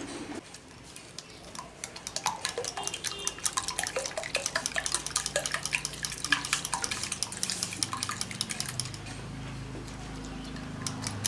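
Wire whisk beating raw egg batter in a glass bowl: a rapid run of light ticks and clinks of the wires against the glass, with the liquid sloshing. The ticking thins out near the end.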